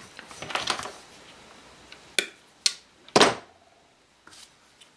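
Handling noise at a work table: three sharp clicks within about a second, midway, then two faint ticks near the end, as small tools and tiny parts are picked up and set down.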